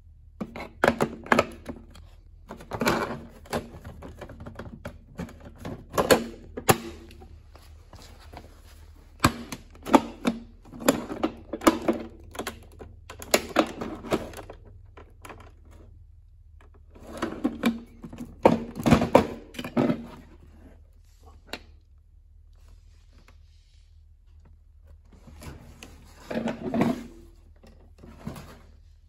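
Hard plastic clicking and clacking as the attachments and hose fitting of a Kenmore canister vacuum are handled, taken out of and pushed back into their on-board storage and seated on the hose inlet. The clicks and knocks come in bursts of a second or two with quiet pauses between.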